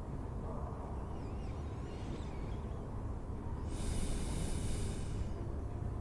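Layered library ambience track: a steady low rumble, faint chirps about two seconds in, and a soft breath-like hiss from about four to five seconds in.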